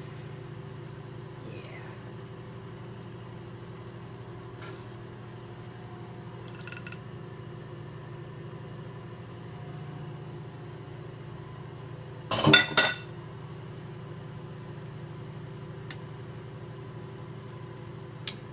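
A glass pot lid clatters in a quick burst of knocks as it is set down, about two-thirds of the way through. A steady low hum runs underneath, with a small metal click from the tongs near the end.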